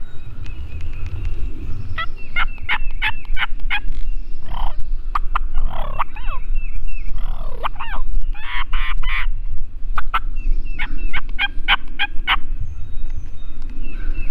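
Wild turkey gobbler (longbeard) gobbling loudly twice, a rapid rattling gobble about two seconds in and another about ten seconds in, with gliding turkey calls between. A songbird sings faintly throughout.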